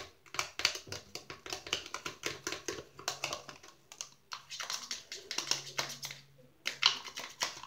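Quick, irregular clicking and tapping as liquid starch and foam hand soap are mixed together in a container to make slime, in runs with short pauses.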